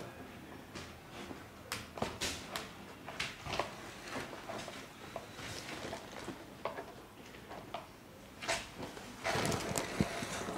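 Irregular small clicks, wet squelches and rustles of gloved hands squeezing liquid dye from a bowl and dabbing it onto tied cloth on a plastic sheet, with a longer rustling stretch near the end.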